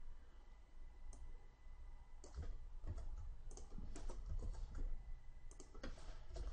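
Computer keyboard keystrokes clicking in irregular short runs as code is typed and edited.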